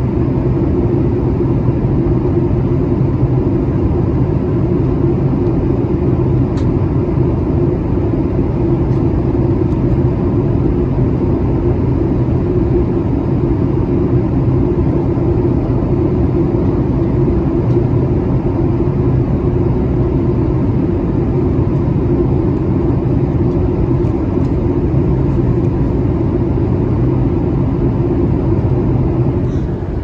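Jet airliner's turbofan engines running, heard inside the cabin as a loud, steady low drone.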